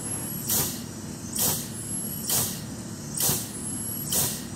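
Air-operated drum oil pump cycling steadily, each stroke a short hiss of exhausting air, about one a second, five strokes in all, over a steady low rumble while it pumps oil through the nozzle.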